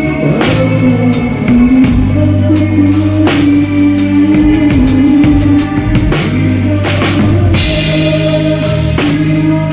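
Rock drum kit with a 22-inch bass drum, snare and Zildjian K cymbals played to a band track: steady kick and snare hits over sustained bass and guitar, with a louder cymbal crash about eight seconds in.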